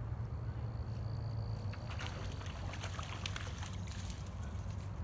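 Water splashing and rustling as a hooked bullhead catfish is landed from the ditch, a run of short clicks and crackles starting about two seconds in, over a steady low rumble.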